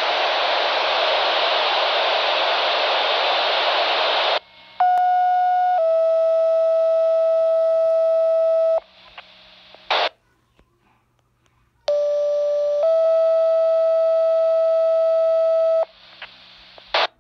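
Motorola fire pager receiving a dispatch tone-out. About four seconds of loud radio static hiss are followed by two-tone sequential paging tones: a short tone, then a long steady tone at a slightly different pitch. The pair is sent twice, each time ending in a brief squelch-tail burst, alerting fire stations to a structure fire call.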